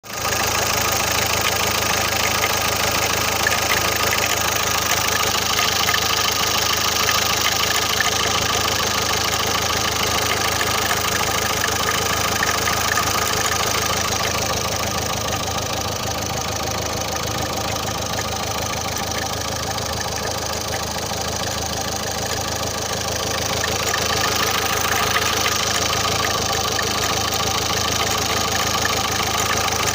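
Renault Scénic II's 1.5 dCi K9K four-cylinder diesel engine idling steadily with a fast ticking running through it, an extraneous noise the owner cannot place. It drops slightly in level for several seconds in the middle.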